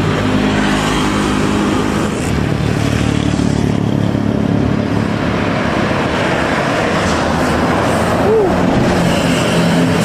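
Road traffic passing close by: a steady engine drone with road noise, as a large intercity coach approaches and passes near the end.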